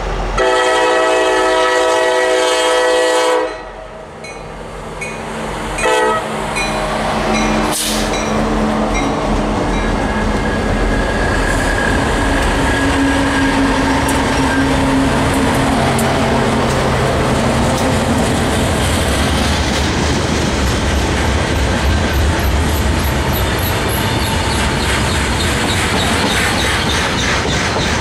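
Norfolk Southern freight diesel's air horn sounds one long blast of about three seconds and then a short blast about six seconds in, a crossing warning. The lead diesel locomotives then pass close by with their engines running, followed by flat cars loaded with new locomotives, the wheels clicking steadily over the rail joints.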